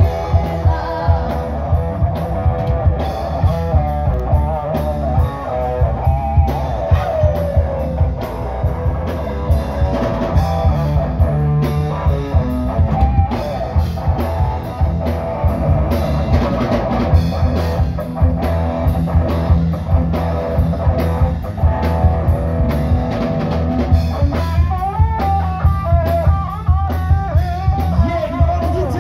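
Live rock band playing through a PA: a male singer over electric guitars and a steady drum beat. The singing is heard in the first few seconds and again near the end, with a guitar-led stretch between.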